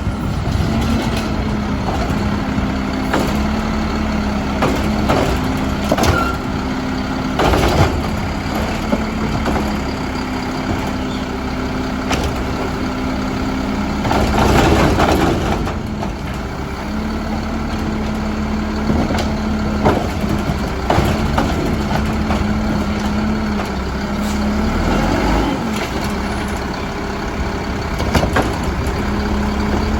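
Mack LEU garbage truck's diesel engine running, with the hydraulic whine of its Labrie Helping Hand side-loader arm and packer switching on and off. A few brief louder noises come about 7, 15 and 20 seconds in.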